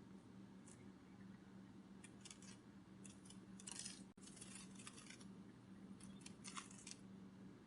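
Faint butterfly wing-flutter sound effect: clusters of quick, papery fluttering crackles that come and go several times, over a low steady hum.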